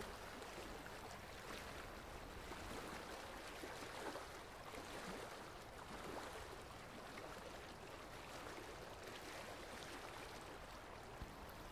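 Faint, steady running water from the aquarium displays, a low trickling wash with no distinct events.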